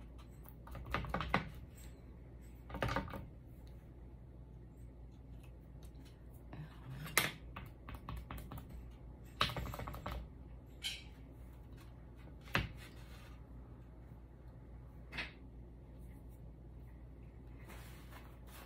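Thin wooden cutout letters tapping and clicking against a wooden board and the wooden sign as they are dipped in glue and pressed into place, with scattered light taps and some rubbing of fingers on wood.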